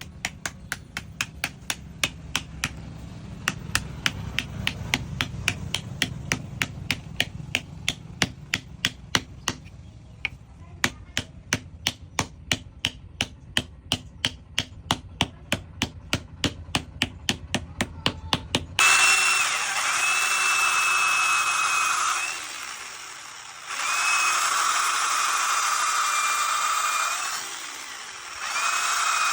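Sharp regular taps, about three a second, over a low hum, then an abrupt change to a louder electric power tool running with a steady high whine, easing off briefly twice.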